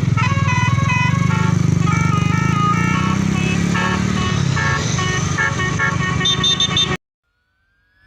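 Multi-note telolet bus air horn playing a fast tune of short stepped notes over a steady low engine drone. It cuts off abruptly about seven seconds in.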